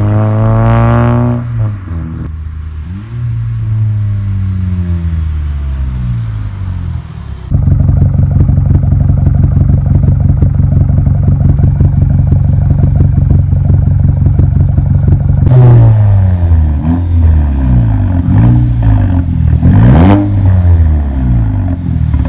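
Exhaust of a Mk6 Volkswagen Jetta GLI's turbocharged four-cylinder (Gen3 engine with IS20 turbo) through a 3-inch catted downpipe and hollowed-out muffler. It first accelerates past with its pitch rising and falling. About seven seconds in it idles steadily close to the twin tailpipes, and from about halfway it is revved repeatedly, the sharpest rev near the end.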